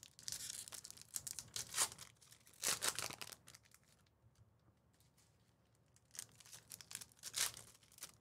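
Packaging being handled: crinkling and tearing in short bursts, with a quiet gap in the middle.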